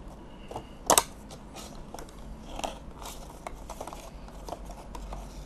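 Cardboard box and plastic packaging of a vinyl collectible figure being opened and handled: a sharp crack about a second in, then scattered light clicks and rustles.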